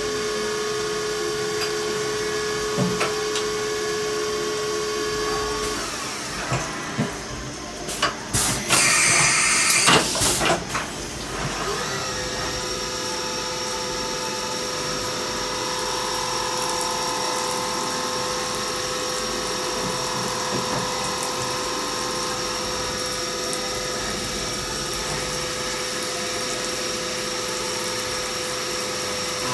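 Milling machine spindle running with a steady whine as it cuts an aluminium part under flood coolant. About six seconds in the tone stops, followed by a few seconds of loud rushing noise and clatter. From about twelve seconds the spindle runs steadily again at a different pitch.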